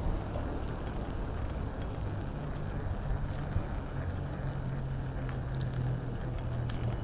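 Road traffic: a vehicle engine running with a steady low hum over a continuous rush of street noise.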